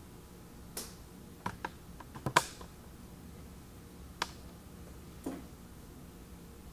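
About seven sharp clicks and taps at uneven intervals, a close pair about two and a half seconds in the loudest, over a low steady room hum.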